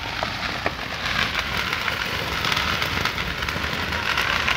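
Ground fountain firework spraying sparks: a steady, even hiss with scattered crackles.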